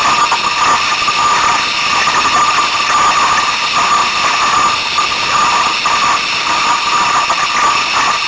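Loud, steady rush of strong storm wind and choppy water as a small Sunfish sailboat runs before the wind, with a constant high whine running through it.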